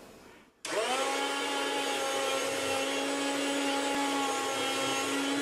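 Chef'sChoice 615 electric food slicer switched on about half a second in, its motor quickly winding up to speed and then running with a steady hum as its circular blade cuts thin slices of pork.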